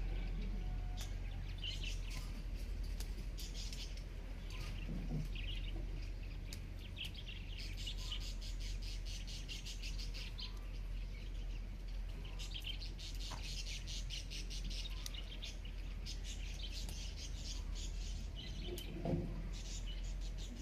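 Birds chirping and twittering in repeated quick trills, over a steady low hum.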